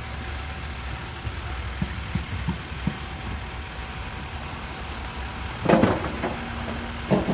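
Construction site noise: a steady low rumble with a faint steady hum, scattered light knocks and clicks, and two louder clattering bangs near the end, the second followed by a steady machine drone.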